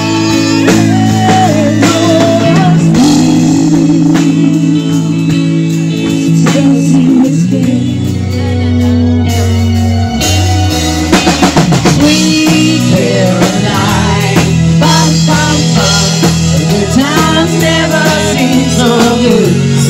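Live rock band playing: electric guitar, bass guitar and drum kit, with singing over a bass line of held notes.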